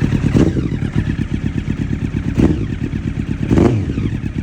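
2009 Honda CBR1000RR's inline-four engine running through a Leo Vince GP Pro exhaust, blipped three times, each short rev falling back to a lumpy idle.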